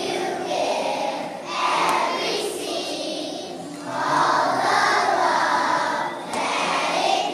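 Large choir of young children singing together in phrases, with short breaks between lines.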